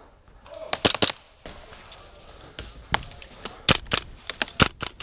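Airsoft guns firing single shots at irregular intervals, as sharp cracks. A few come about a second in, and a faster string of shots follows in the last second and a half.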